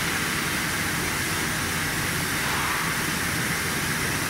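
Steady running noise of a plastic bottle blow molding production line: an even, constant hiss with a low hum beneath it, with no distinct clicks or knocks.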